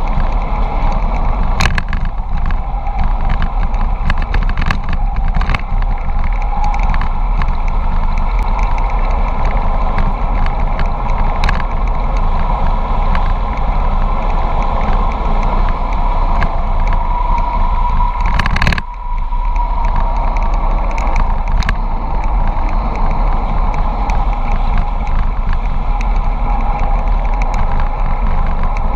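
Wind noise buffeting the microphone of a camera on a bicycle coasting fast downhill, mixed with tyre hiss on asphalt and scattered light clicks and rattles. The noise dips briefly about two-thirds of the way through.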